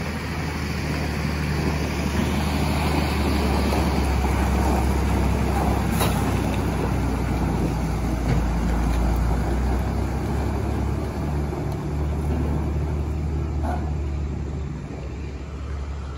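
Heavy truck engine running as it hauls a low-bed trailer loaded with a rough-terrain crane slowly past, a steady low drone that grows louder and then fades as the rig pulls away.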